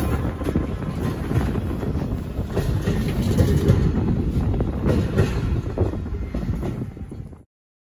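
Freight train passing close by: the diesel locomotive's rear and then a short rake of HRA bogie hopper wagons rolling past with a low rumble and repeated wheel clicks. The sound cuts off abruptly about seven and a half seconds in.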